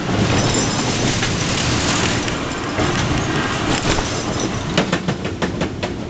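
Steel stand-up roller coaster train running along its track, a steady rumble of wheels with wind on the microphone. A quick series of clicks comes in the last second and a half as the train rolls along the final stretch toward the station.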